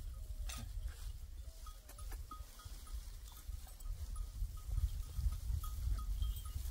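Sheep flock heard over a steady low rumble, with a string of short high blips repeating a few times a second.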